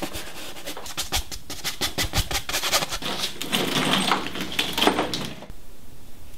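Oil-paint brush scrubbing and dabbing on canvas and palette in quick, scratchy strokes. The sound drops to softer, scattered ticks about five and a half seconds in.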